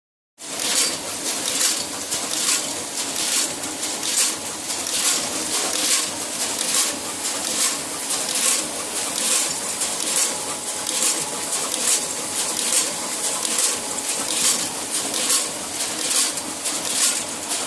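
Bag-packaging machine fitted with a Savema SVM 32 intermittent thermal transfer overprinter, running in a regular cycle: a hissy stroke about once a second over a steady machine noise. The sound cuts in suddenly about half a second in.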